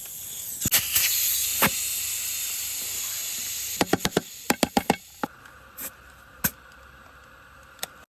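Compressed air hissing steadily, then cutting off about five seconds in. A quick run of sharp clicks comes just before it stops, and a few single knocks follow.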